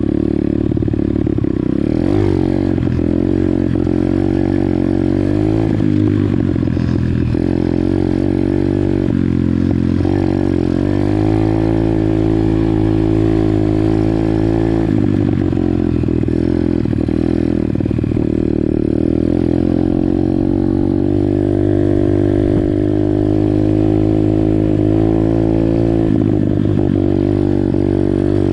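Pit bike's small single-cylinder engine running under load while ridden, its pitch rising and falling over and over as the throttle is opened and closed.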